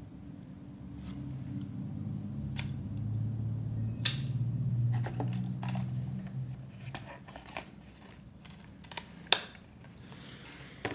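Sharp metallic clicks of pocketknife blades being handled, snapping open and shut, a few seconds apart. A low hum swells and fades underneath.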